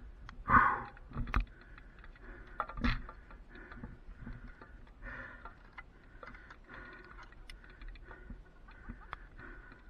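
Metal clinks and knocks from a cable lasher and climbing hardware being handled. There is a sharp knock about half a second in and two more within the next two and a half seconds, with light scattered clicking.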